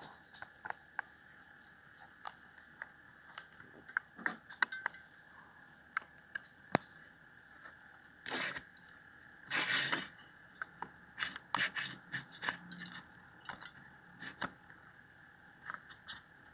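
Scattered small clicks and taps with a few short scraping rustles: small plastic parts and a hand tool being handled on a workbench.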